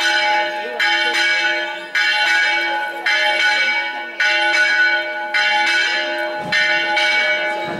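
Church bell struck repeatedly, about once a second, each strike ringing on and fading before the next, over the bell's steady hum.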